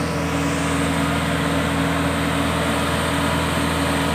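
Kubota DC-70 combine harvester's diesel engine running steadily at an even pitch.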